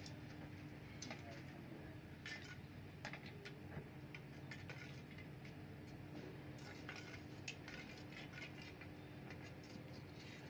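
Steel rod clinking and scraping against a small crucible as molten aluminium is stirred, in many light, irregular metallic ticks over a steady low hum.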